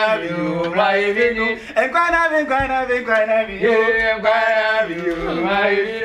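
A man singing a chant-like tune, with long held notes that step up and down in pitch.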